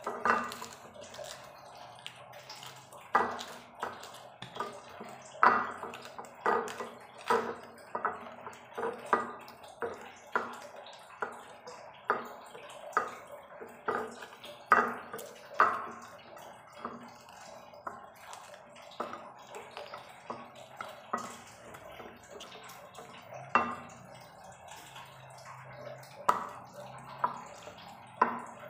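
Wooden pestle pounding and crushing green chilies on a plate: irregular knocks about once a second, softer for a while past the middle.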